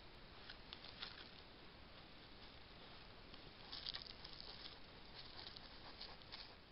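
Faint rustling and soft crackling of a European badger walking through dry grass close to the camera, in short clusters about a second in, around four seconds in and near six seconds, over a steady hiss.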